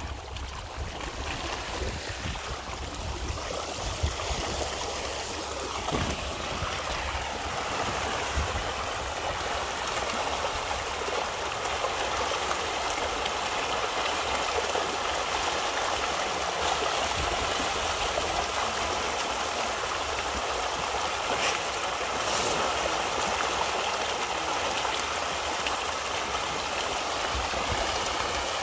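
Dense splashing and churning of water from a large shoal of fish thrashing at the surface, building over the first several seconds and then holding steady.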